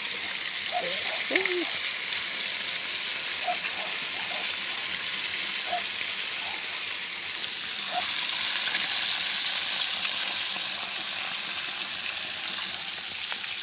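Tilapia frying in hot oil: a steady sizzle that swells a little about eight seconds in.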